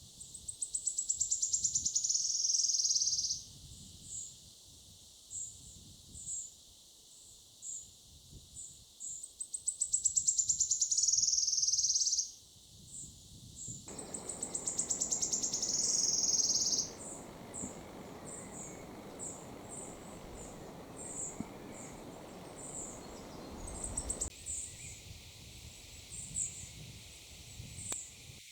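Wood warbler singing its shivering trill three times: each song is a fast run of high notes lasting about three seconds and dropping in pitch at the end, with single high sharp notes between the songs.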